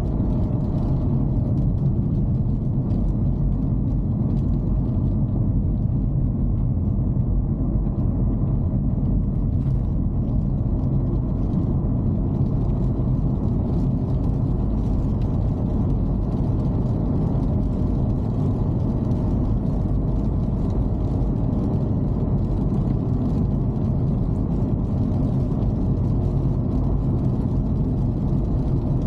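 Dacia Duster heard from inside the cabin while driving at a steady speed: an even low rumble of engine and road noise with no change in pace.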